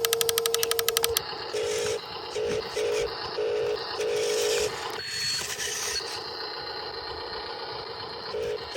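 Radio-controlled construction models' small electric motors and gearboxes whining, with a rapid buzzing tone for about the first second and then short electronic beeps coming on and off in separate bursts, likely from the models' sound modules.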